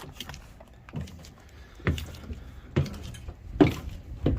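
Footsteps on a hard floor, heavy thuds about one a second, the loudest about three and a half seconds in.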